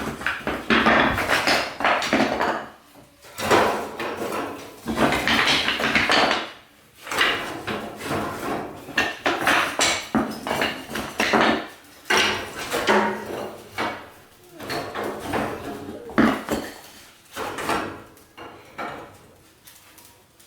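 Small split firewood being loaded into a stove's firebox: irregular clattering knocks of wood on wood and on metal, in bursts with short pauses.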